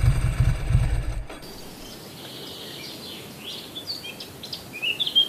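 A Ducati 900 SS's air-cooled V-twin engine is idling with a low, pulsing beat, then stops abruptly about a second in. Birds then chirp and sing in short phrases.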